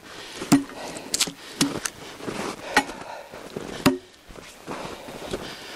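Irregular sharp knocks and clacks, about six in all, from handling logs and a tie-down strap on a log sleigh's bunks.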